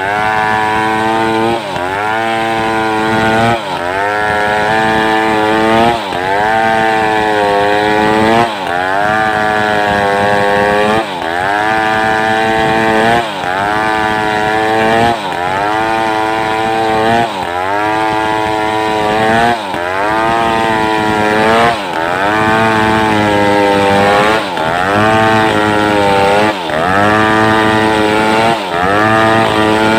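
Homemade two-stroke chainsaw running at high revs while cutting mindi wood. The engine note dips sharply and climbs back roughly every two seconds.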